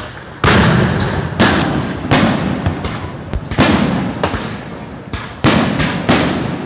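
Aerial firework shells bursting in quick succession, about ten loud bangs, each followed by a fading rumble. The loudest comes about half a second in.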